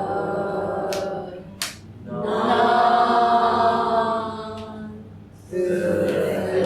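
A class of adult students saying a word together in chorus, drawn out in three long passes as they practise English stress, full vowels against reduced ones. Two sharp hand claps fall between the first and second passes.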